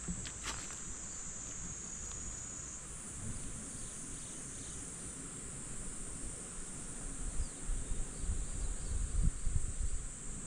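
Insects in the surrounding summer forest droning steadily in one high shrill band. From about seven seconds in, low irregular rumbles of wind on the microphone join it.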